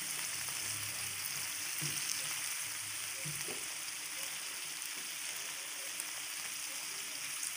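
Pieces of mutton liver sizzling steadily in oil in a non-stick frying pan on a low flame, with a spatula now and then stirring through them.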